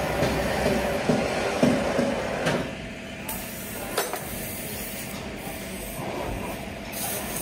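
Tubeless car tyre puncture repair: a mechanic works a plug-insertion tool into the tread. There is one sharp click about four seconds in, over steady workshop and traffic noise.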